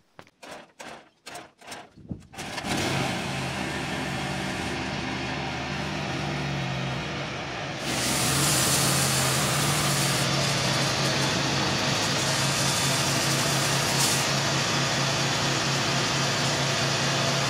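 Homemade bandsaw mill's engine starting with a few short sputtering beats, then running steadily. About eight seconds in it gets louder, with a strong hiss added as the band blade cuts through the spruce beam.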